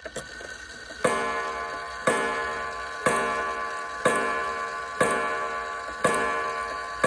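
Antique gingerbread mantel clock striking the hour: evenly spaced ringing strokes about once a second, each fading before the next, as it counts out seven o'clock.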